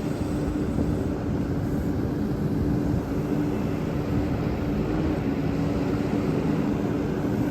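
Diesel engine of a New Holland B95 backhoe loader running steadily at a constant, raised speed while the machine is worked.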